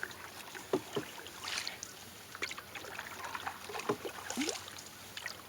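A paddle dipping and pulling through calm water beside a small sailing dinghy, with water splashes and a few short knocks scattered through the strokes.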